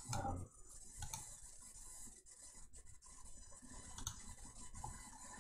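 Quiet room tone with a few faint clicks from a computer mouse.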